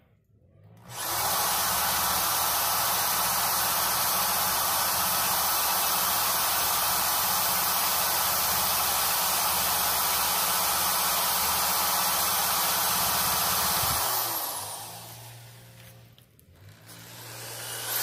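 Power tool spinning a rubber decal eraser wheel against a school bus's painted side, stripping old lettering. It runs steadily, winds down about two-thirds of the way through, then speeds up again near the end. The wheel has worn unevenly and is bouncing against the panel.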